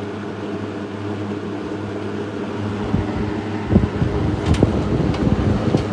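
Vintage GE WC2 box fan running on low speed: a steady motor hum with the whoosh of the blades. A little before four seconds in, an irregular, gusty low rumble joins it, with a few faint ticks.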